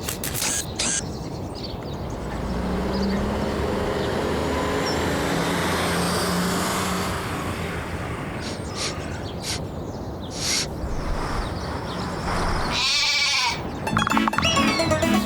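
Animated-cartoon soundtrack without dialogue: a long noisy sound effect with a few clicks, a wavering swoosh near the end, then background music coming in.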